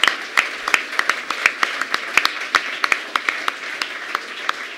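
Audience applauding: many irregular hand claps with a few sharp ones standing out, thinning out near the end.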